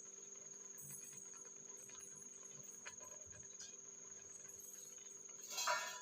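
Faint background: a steady high-pitched chirring tone like a cricket's over a low hum, with a short louder noise near the end.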